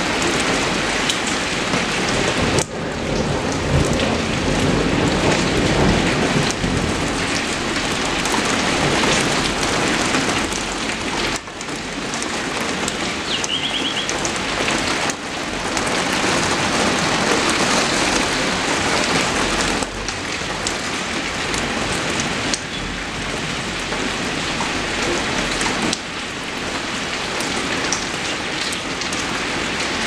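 Heavy rain falling steadily on tree foliage, a dense, even hiss of drops on leaves. A few times the level drops suddenly for a moment.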